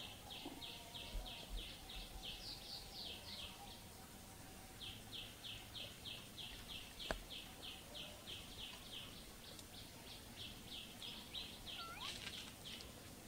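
Forest ambience with a high chirping call repeated about four times a second, in three long runs with short breaks. A single sharp click about seven seconds in.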